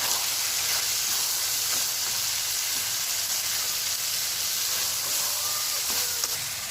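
Vegetables frying in a karai: a steady sizzling hiss, with a few faint light knocks.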